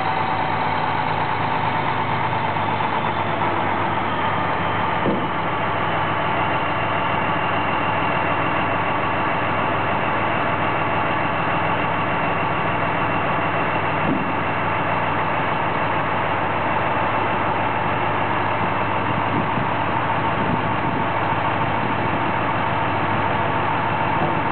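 1995 Mack RD690S dump truck's diesel engine idling steadily while the raised dump body is lowered, with a higher whine that fades within the first few seconds.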